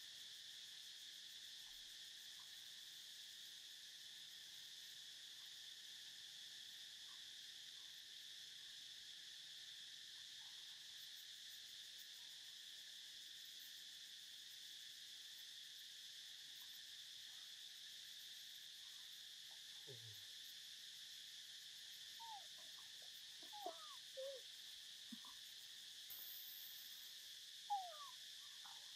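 Steady high drone of insects. From about two-thirds of the way in, a handful of short animal calls that slide in pitch, the loudest near the end.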